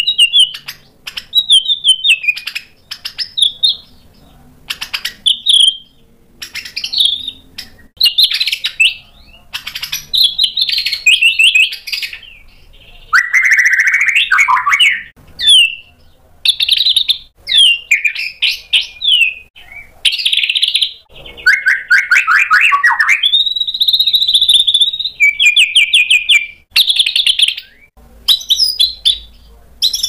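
Male white-rumped shama (murai batu) singing a loud, varied song: a quick succession of short phrases, rapid repeated-note trills and a few longer held whistles, with brief pauses between them.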